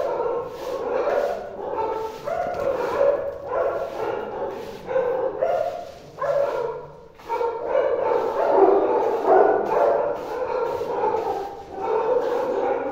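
Dogs whining and yelping almost without pause, with the scrape of a broom being pushed across the floor.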